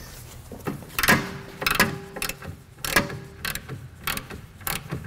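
Hand ratchet with a 14 mm socket clicking in short, irregular runs as it turns the nut on the rear stabilizer link, with pauses between strokes.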